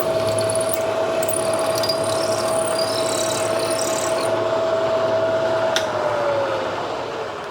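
Milling machine spindle running with a steady whine while a number 7 drill bit cuts into a steel drill rod, with squealing from the cut for the first four seconds. A click comes about six seconds in, and then the whine falls in pitch as the spindle winds down after being switched off.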